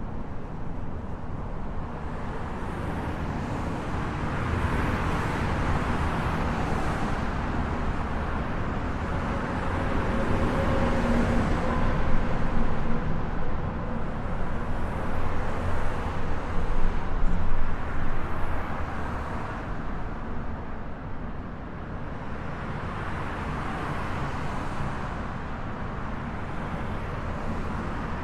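Highway traffic noise: a continuous rush of tyres and engines that swells each time a vehicle passes, loudest about twelve and seventeen seconds in.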